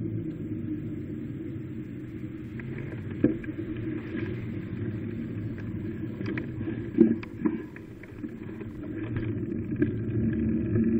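Steady rolling and rumbling noise of a ride along a paved cycle path, with a few sharp knocks and rattles, the loudest about seven seconds in. It grows louder near the end.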